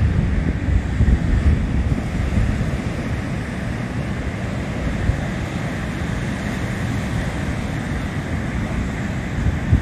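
Rough sea surf breaking and washing over the shore in a steady rush, with wind buffeting the microphone, gustiest in the first second or so.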